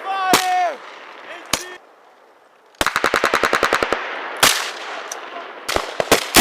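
Machine-gun and rifle fire: one or two single shots, a short lull, then a rapid burst of about a dozen rounds about three seconds in, followed by a louder single shot and a few more scattered shots near the end. A brief shout comes near the start.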